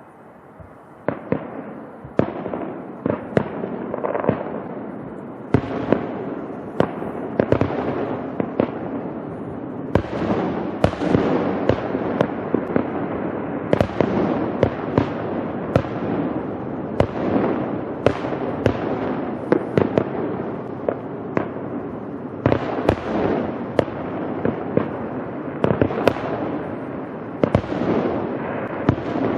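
Fireworks grand finale heard from a distance: a dense, continuous barrage of sharp bangs over a rolling rumble, starting about a second in.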